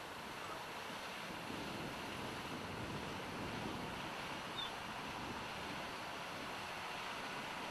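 Large tractor pulling a wide cultivator across a stubble field: a steady, even engine and working noise blended with wind on the microphone.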